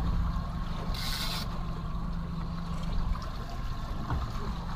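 Steady low rumble of a boat's 150 hp outboard motor running, with water and wind noise. There is a brief hiss about a second in.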